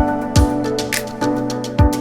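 Background music with a steady beat: kick drum, hi-hats and sustained melodic notes.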